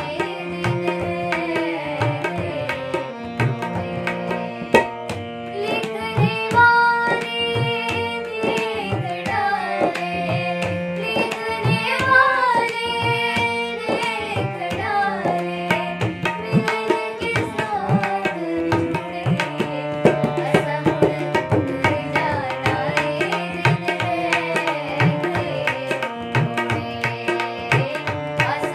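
Two female voices singing a Hindi film song together, over the held chords of a harmonium and a steady tabla rhythm.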